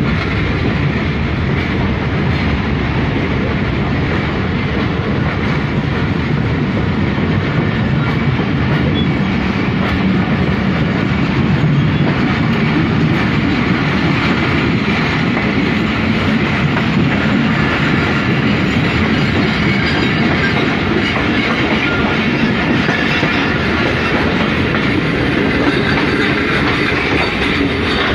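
Two passenger trains running side by side at speed, heard from the doorway of one of the moving coaches: a steady, loud rumble and clatter of wheels on rails.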